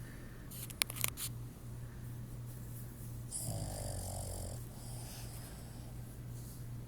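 Boston terrier snoring in her sleep, a steady low snore with one louder snore about three and a half seconds in. A few sharp clicks about a second in.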